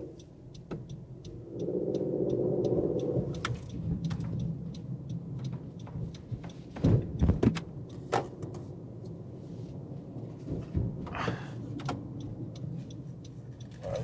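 Low, steady engine and road rumble inside the cabin of a Honda CR-V SUV on the move, with a light, regular ticking and a few sharp knocks about seven seconds in.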